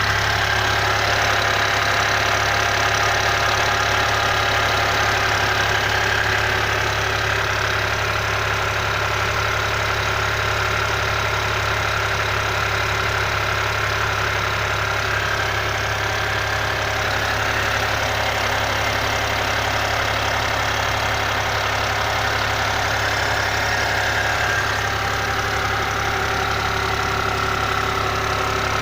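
Alfa Romeo Brera 3.2 V6 idling steadily from a cold start, with a clattering rattle from the top end of the engine. The owner wonders whether it is the hydraulic lifters, since the timing chain is said to be brand new.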